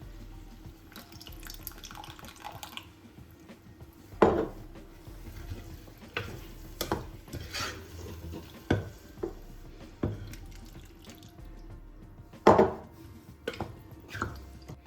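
Water running from a kitchen tap into a sink while dishes and utensils are handled, with about ten sharp clinks and knocks of dishware, the loudest a little after four seconds and again past twelve seconds.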